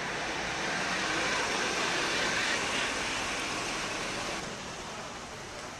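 Street traffic noise: a rushing hiss that swells for about four seconds, like a car going by, then settles to a quieter background.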